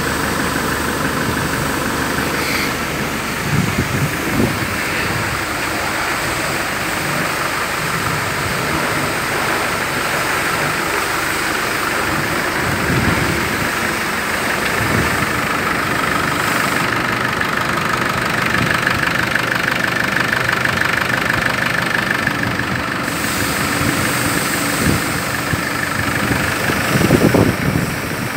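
Land Rover Defender 110 engine idling steadily.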